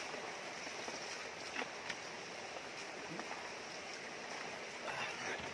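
Shallow rocky river flowing steadily, with a few small splashes of water.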